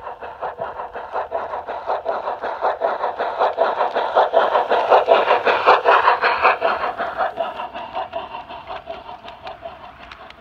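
G-scale model train running past on garden track, with a fast, even clicking of about five beats a second. It grows louder to a peak about six seconds in, then fades away.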